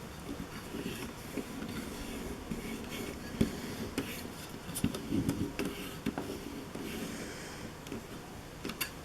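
Electrical tape being rubbed and pressed down over a ribbon cable connection inside an opened plastic game clock: a soft rubbing rustle with scattered light ticks and taps of fingers on the plastic parts.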